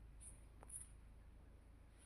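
Near silence: faint room tone with a few soft, tiny ticks.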